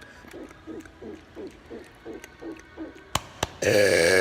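A man's deliberate burp, loud and about a second long, starting near the end. Before it comes a steady run of short low pulses, each dropping in pitch, about four a second, then two sharp clicks.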